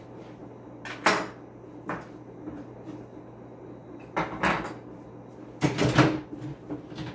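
Wood and metal knocks and clunks as a brass drawer pull and screwdriver are set down on a countertop and a wooden dresser drawer is handled. There is a sharp knock about a second in, two more clunks a little after four seconds, and the loudest cluster of bumps near six seconds.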